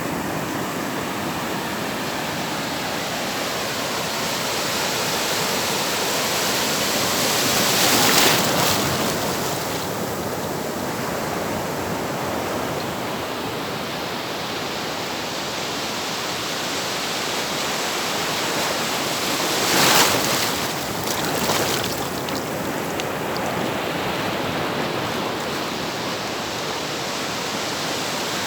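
Atlantic surf washing onto the shore: a steady rush of water with two louder breakers, one about eight seconds in and another about twenty seconds in.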